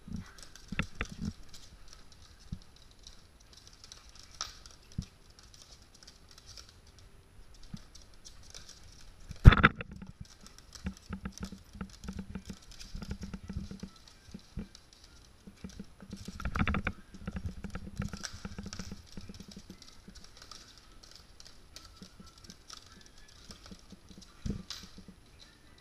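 Maltese dogs' paws and claws clicking and scrabbling on a hard wooden floor as they play, with a few louder thumps. The loudest comes about a third of the way in, and another comes about two thirds in.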